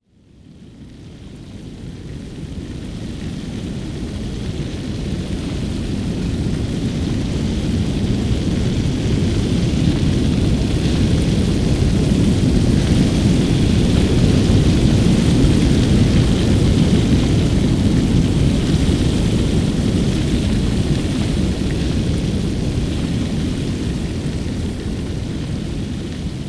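A long fire whoosh sound effect: a dense, low rush of flame with a crackling grain, swelling up from silence over several seconds, holding, then slowly easing off.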